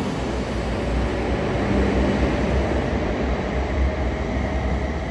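Shinkansen train pulling out of the station: a loud, steady deep rumble with rushing noise, and a thin whine coming in about three and a half seconds in.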